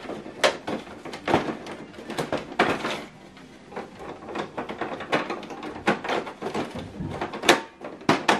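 Irregular plastic clicks and knocks as a black ink cartridge is pushed into, and then upward into, the cartridge holder of a Canon Pixma TS3150 printer. The loudest knock comes near the end.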